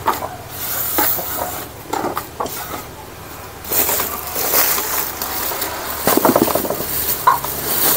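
Handfuls of chopped papaya leaves being scooped off a wooden board and dropped into a rubber bucket, rustling and crunching in irregular bursts. In the second half a sack rustles as it is set down beside the bucket.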